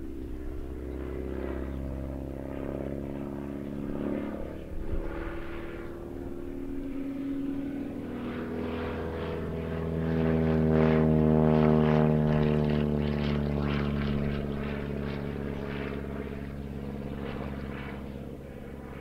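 VL Viima II biplane's Siemens-Halske radial engine and propeller droning overhead in aerobatic flight. The engine note shifts in pitch as the plane manoeuvres, grows loudest a little past halfway as it passes closest, then drops in pitch and fades as it moves away.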